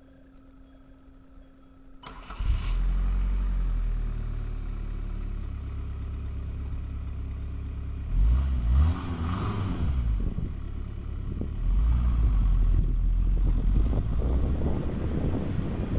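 Ford Escort's 1.8 diesel engine, built from a Focus TDDI head and pistons on a Mondeo 1.8TD block with a Bosch mechanical injection pump, starting about two seconds in and settling into a steady idle. It is revved up and back down about eight seconds in, and runs louder again for a few seconds near the end.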